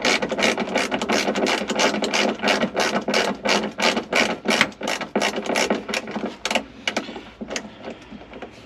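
Hand ratchet wrench clicking quickly and evenly, about four or five clicks a second, as a seat belt anchor bolt is run down; the clicking thins out and gets quieter near the end.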